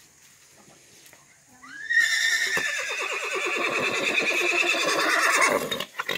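Horse whinnying: one long neigh of about four seconds that starts with a rising squeal and then shakes its way slowly down in pitch.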